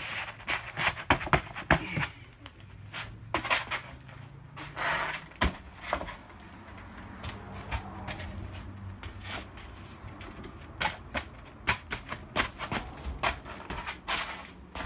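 Foil-faced EPS foam insulation boards being handled and pressed into place between aluminium floor beams: an irregular run of sharp clicks, creaks and crinkles, coming in clusters.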